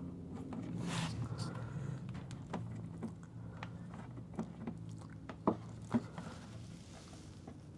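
Light clicks and taps of a plastic mud flap being handled and pressed into place against a car's wheel-well trim, two sharper clicks about five and a half and six seconds in, over a faint steady low hum.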